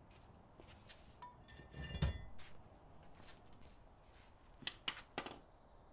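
Metal tools and parts clinking and knocking during brake work: a knock with a brief metallic ring about two seconds in, then a few sharp clicks near the end.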